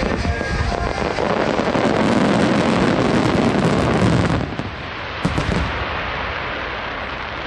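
Starmine fireworks barrage: many rapid, overlapping bangs and crackles, loudest through the first four seconds. The barrage then falls away suddenly, with one more bang about five seconds in.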